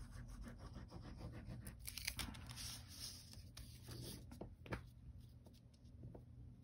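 Faint handling of paper and cardstock on a craft cutting mat: scattered light taps and a longer sliding rustle about two to three seconds in.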